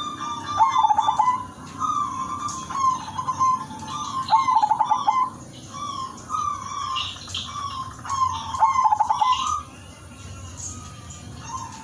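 Zebra dove (perkutut) cooing: three song phrases about four seconds apart, each a few clear notes ending in a fast rolling trill. Small birds chirp high in the background.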